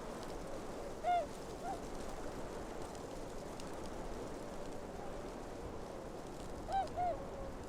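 Tundra ambience: a steady outdoor hiss with a few short honking calls of geese, one about a second in and two close together near the end.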